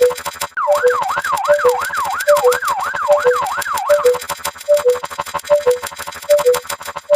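Siren sound effect: a two-tone high-low siren repeating about once a second, with a fast up-and-down yelp siren wailing over it for about three and a half seconds, starting about half a second in.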